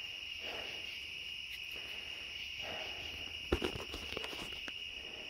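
Crickets chirping in a steady high chorus, with a few soft clicks and taps a little past halfway.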